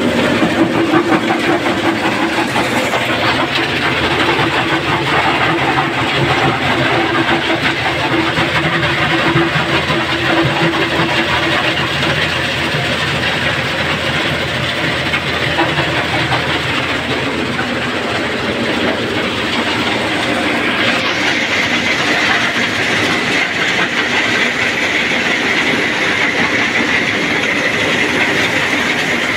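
Stone crusher plant machinery running: a loud, continuous mechanical rattle and clatter. A steady hum sits under it in the first half, and a higher whine stands out in the last third.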